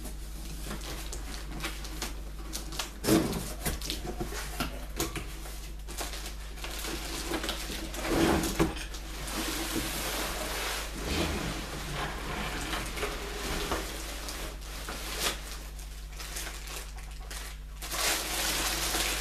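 Cardboard box flaps and clear plastic packaging being handled, rustling and crinkling, with scattered knocks and taps from parts being unpacked, over a low steady hum.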